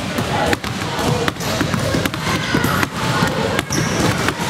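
Many basketballs being dribbled at once on a wooden gym floor: an irregular, overlapping clatter of bounces with no steady rhythm.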